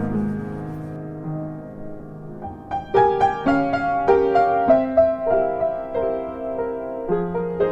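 Background piano music: held notes fade away, then a new melody of distinct notes begins about three seconds in.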